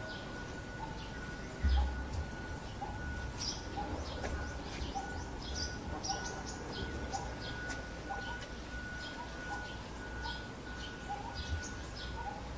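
Outdoor birdsong: several birds chirping and calling, over a steady high note broken into short stretches and a low rumble, with a soft bump about two seconds in.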